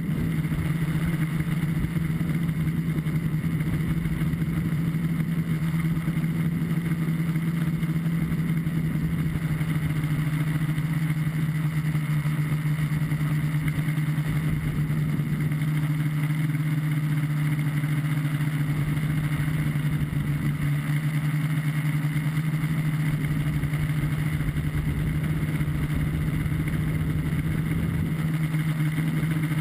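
Three electric motors and propellers of a multirotor tricopter droning steadily in flight, as picked up by a camera on board, with a low rumble of wind buffeting the microphone.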